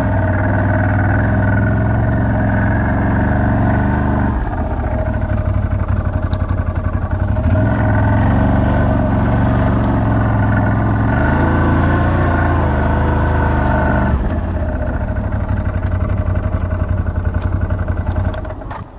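A motor vehicle's engine running while being driven. It eases off about four seconds in and again about fourteen seconds in, then dies away near the end as the vehicle stops.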